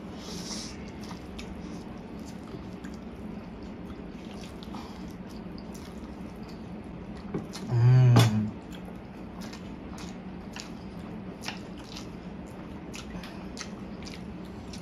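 Close-up eating sounds: spicy Korean fire noodles being slurped and chewed, with small wet mouth clicks and light chopstick taps over a low steady hum. About eight seconds in comes one much louder slurp with a hummed voice in it, as a long mouthful of noodles is drawn in.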